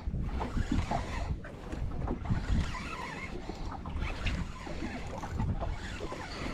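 Wind buffeting the microphone in an irregular low rumble, with sea water lapping against the side of a small boat.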